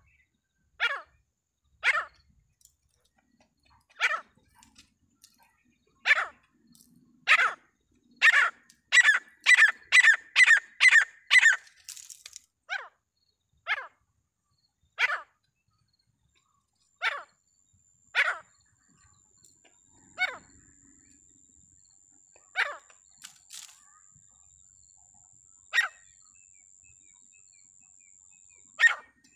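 Francolin (teetar) calling: sharp, loud single calls a second or two apart, breaking into a fast run of about eight calls at roughly two a second, then spaced calls again. A faint steady high whine joins a little past the middle.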